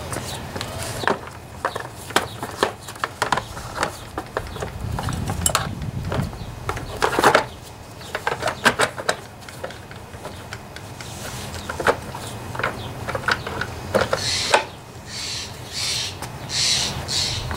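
Scattered plastic and metal clicks and knocks from hands and a tool working at the recoil starter and rope guide of a Subaru EA190V pressure washer engine. Near the end comes a quick series of short hissy rasps about half a second apart.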